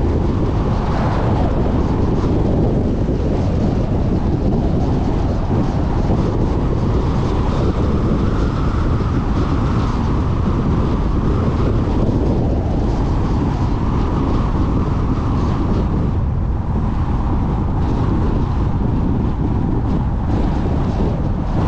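Steady rumble of wind and tyre noise from a car driving along a paved highway, with wind buffeting the camera microphone.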